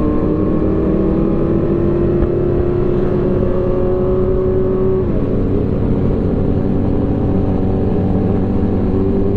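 Sportbike engine heard from onboard, pulling steadily with its pitch slowly rising, then dropping sharply about five seconds in as it shifts up a gear before climbing again near the end, over steady wind rush.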